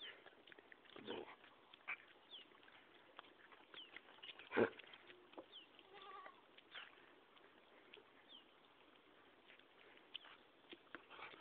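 A single short, loud animal call about four and a half seconds in, with a brief fainter pitched call around six seconds and scattered faint clicks.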